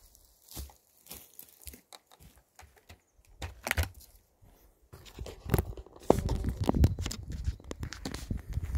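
Scattered faint crackles and rustles, then from about six seconds in louder crunching and handling noise: footsteps through dry heather and the camera being picked up and carried.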